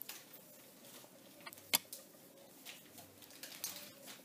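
Faint rustling and small clicks of a plastic crochet hook being worked through yarn by hand, making a double crochet stitch, with one sharper click a little under two seconds in.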